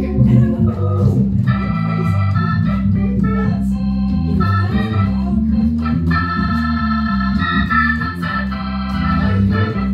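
Crumar Mojo Dual drawbar organ playing blues, with strong sustained bass notes under right-hand chords that come in about a second and a half in. It plays through a Motion Sound Pro 145 rotary speaker, with a Fender Rumble 500 bass amp on the sub out reinforcing the low end.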